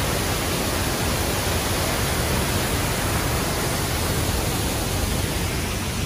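Small waterfall rushing over rocks: a steady, even rush of falling water.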